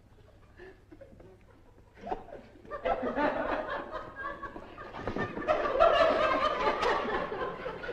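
People laughing on a film set: faint at first, then breaking into open laughter about two seconds in that grows louder toward the end.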